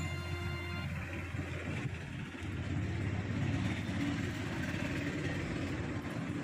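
Roadside street noise: traffic running past with a steady low rumble. Background music cuts off about a second in.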